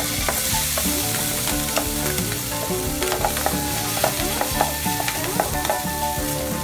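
Seasoned baby clam (hến) meat dropped into hot oil and fried shallots in a wok, sizzling at once as it hits the pan, then frying steadily while it is stirred and tossed, with repeated clicks and scrapes on the pan.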